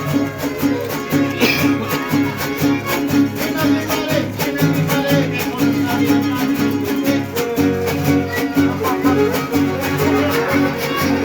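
Son huasteco trio playing an instrumental passage: a violin melody over the steady strummed rhythm of the huapanguera and jarana huasteca.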